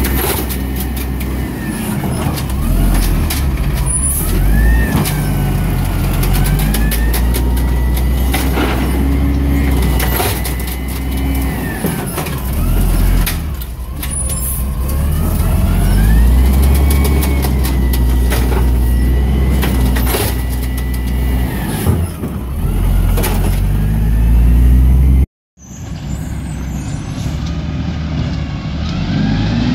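Peterbilt 320 garbage truck with an Amrep automated side-loader at work: the engine revs up and down with each arm cycle while the hydraulics whine in rising and falling glides, and carts clank as they are lifted and emptied. After a short break about 25 seconds in, the truck runs farther off.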